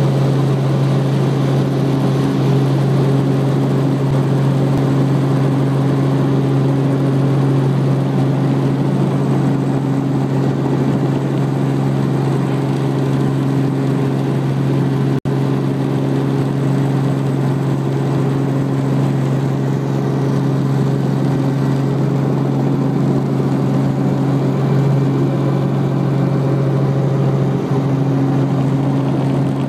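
Helicopter engine and rotor droning steadily from inside the cabin while it comes in to land, a constant low hum with a higher overtone above it. The sound cuts out for an instant about halfway through.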